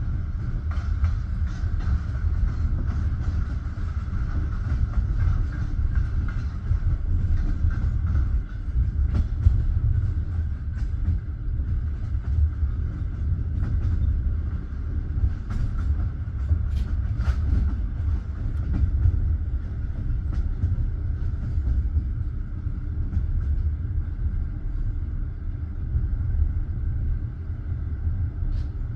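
Passenger train rolling along the track, heard from a coach: a steady low rumble of wheels on rails with scattered sharp clicks and knocks.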